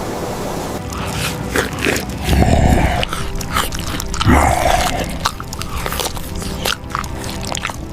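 Irregular crunching and crackling clicks, with two heavier low thuds about two and a half and four seconds in, over quiet background music.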